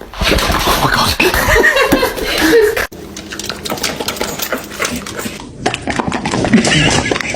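A dog vocalizing with people's voices, cutting off abruptly about three seconds in to a different, quieter scene.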